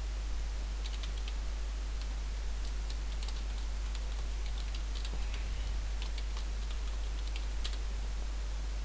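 Computer keyboard typing: scattered light key clicks, over a steady low hum and hiss.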